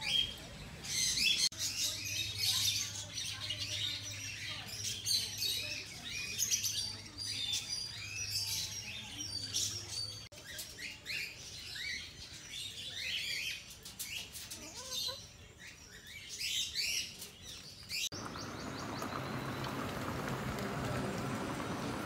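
Many small birds chirping and calling together in dense, overlapping chirps. About eighteen seconds in, this cuts off abruptly to a steady rushing noise with a faint thin whine.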